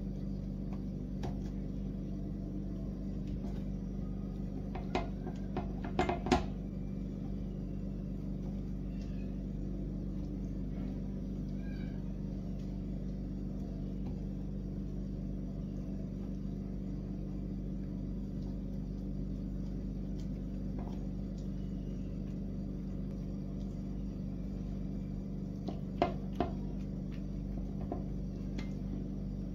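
A few light knocks and clicks as stuffed vegetables are set into a nonstick double-sided grill pan. The knocks come in a cluster about five to six seconds in and a pair near the end, over a steady low hum.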